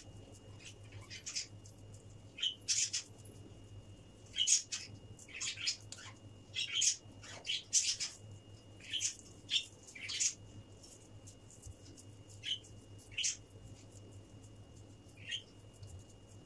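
Wet squishing and slapping of raw minced-meat köfte mixture being pinched off and pressed into patties between the palms, in short irregular bursts that thin out near the end.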